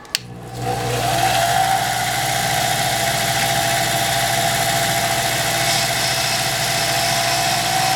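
Cue lathe switched on with a click, its motor spinning up over about a second and then running steadily with a constant whine.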